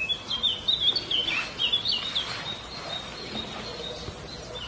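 Small birds chirping: a quick run of short, curling high notes for the first two seconds or so, then a thin steady high note that fades out near the end.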